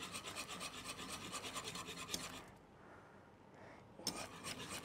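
Wire whisk scraping rapidly around the inside of a coated cooking pot, about six strokes a second, beating a cocoa and cornflour milk mixture so that no lumps form as it thickens on the flame. The whisking pauses for about a second and a half midway, then starts again.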